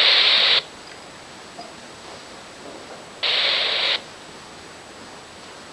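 Radio Shack Pro-97 police scanner: a transmission ends in a burst of static, then a low hiss. About three seconds in comes another short burst of static, under a second long, with no voice in it.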